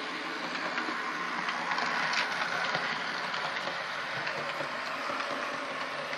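Märklin HO model diesel locomotive running on plastic C-track with stainless steel rails: a steady whirr of its electric motor and gears with the rattle of its wheels on the rails.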